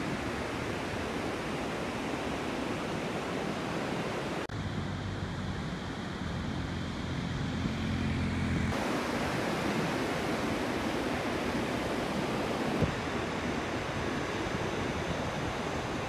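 Wind buffeting the microphone over steady surf. For a few seconds a third of the way in, the low, steady drone of a tracked tractor's engine comes through, and it breaks off suddenly past the halfway point.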